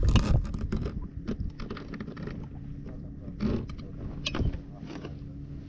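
Handling noises on a plastic fishing kayak: irregular clicks, knocks and rattles as a freshly caught fish and lure are handled, over a steady low rumble of wind and water.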